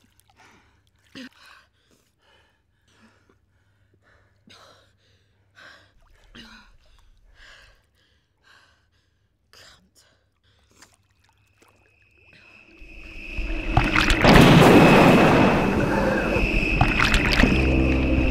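Quiet breaths and gasps with small laps of pool water, then from about twelve seconds in a loud rush of churning, splashing water as a swimmer thrashes, with a steady high tone running through it.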